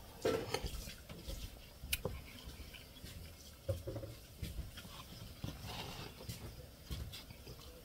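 A person slurping spicy chicken soup from a paper bowl, with wet mouth and swallowing noises that come in irregular bursts and a few sharp clicks.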